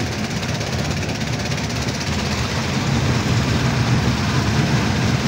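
Fairground mini train ride running on its circular elevated track: a steady low rumble from the ride's drive and wheels.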